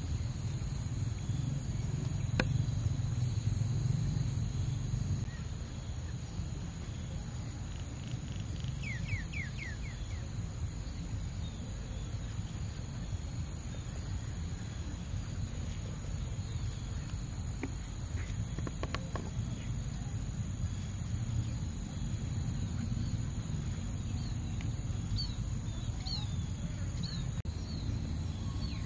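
Outdoor ambience: a low steady rumble under a high, steady insect drone. A quick run of bird chirps comes about nine seconds in, and more short chirps near the end.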